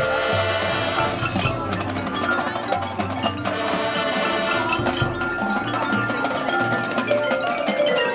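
High school marching band playing a show piece: sustained band chords over low bass notes, with the sideline front ensemble's mallet percussion ringing out prominently.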